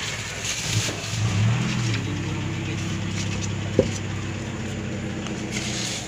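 A motor vehicle engine idling steadily, its note swelling briefly between one and two seconds in. A single sharp click just before the four-second mark.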